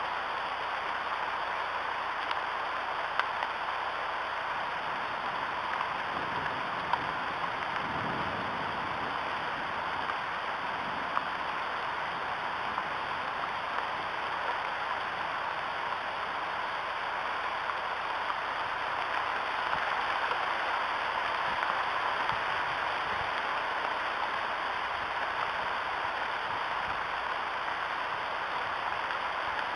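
Steady rain falling on the nest sticks and surrounding leaves, a constant hiss with a few sharper drop ticks now and then.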